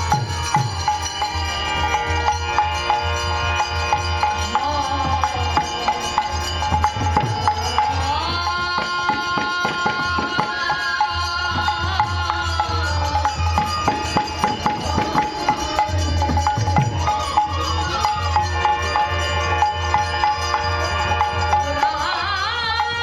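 Bengali kirtan music: a hand drum keeps a steady beat with small cymbal strokes, under long held chord tones and a melody that glides up between notes.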